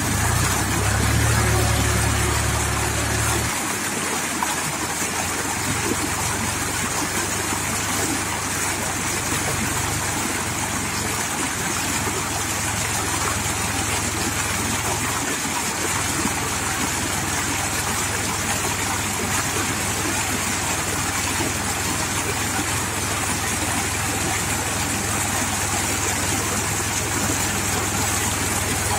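HMT 4022 tractor's diesel engine idling steadily, a little louder for the first three or four seconds, under a steady hiss.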